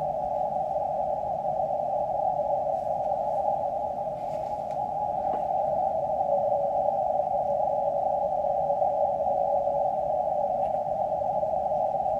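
Receiver audio from a QRP Labs QMX+ transceiver being tuned up the 17-metre band: a steady hiss of band noise held to a narrow pitch range, with no clear signal standing out.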